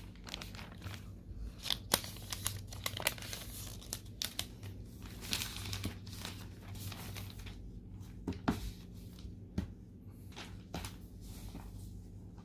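Plastic shrink-wrap on a MacBook Air box being torn off and crinkled: irregular crackling and tearing with a few sharp clicks.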